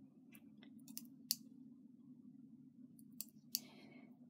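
Small sharp metal clicks of a latch tool catching and latching stitches on a knitting machine's needles: about half a dozen irregular clicks, one followed by a short scrape near the end, over a faint steady low hum.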